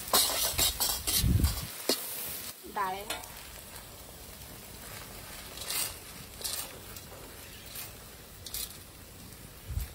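Flat metal spatula scraping and clanking rapidly against a steel kadhai as an onion-tomato masala sizzles in oil. After about three seconds the stirring stops and the frying hiss carries on more quietly, with a few sharp clicks as roasted chana dal is tipped into the pan.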